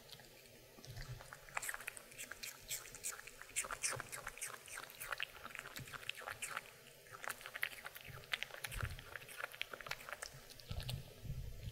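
A Maltese dog crunching a piece of raw apple: a quick run of crisp bites lasting several seconds, with a couple of low thumps near the end.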